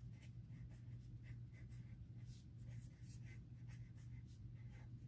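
Pen writing a word on paper: faint, quick scratching strokes over a steady low hum.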